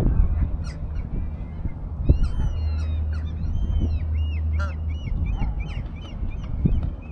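A flock of waterfowl calling, many short arching calls overlapping one another from about a second and a half in, over a low steady rumble.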